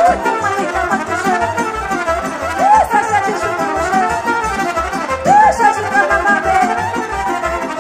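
Live band playing dance music, with a trumpet carrying the melody in scooped, bending notes over a steady bass beat.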